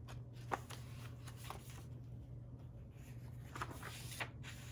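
Paper pages of a handmade junk journal being turned and handled: a few light rustles and taps, about half a second in, a second and a half in, and a cluster near the end, over a steady low hum.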